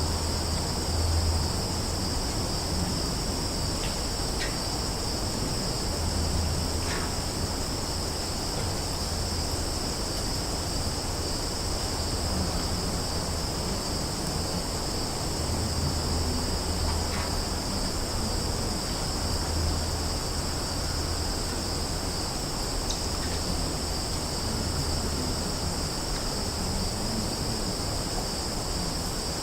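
Summer forest ambience: a steady, high-pitched chorus of crickets, with a handful of faint, short bird chirps scattered through it and a low rumble that swells and fades underneath.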